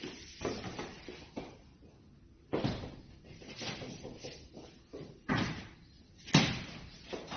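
A thin marble-faced composite panel is struck in an impact test. Three heavy thuds land a few seconds in, around the middle and near the end, the last one loudest, with lighter knocks between them.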